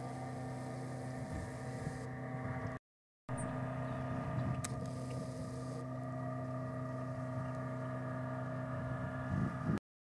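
A steady, even engine hum with a low pitch, broken by two brief drop-outs to silence: one about three seconds in and one at the very end.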